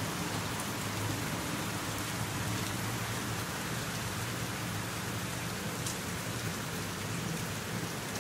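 Rain falling steadily during a thunderstorm, an even hiss of rain on surfaces with no thunder clap.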